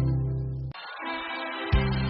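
Sertanejo country music: the held final chord of one song cuts off abruptly under a second in, and after a short lull the next song's instrumental intro begins with a deep bass line.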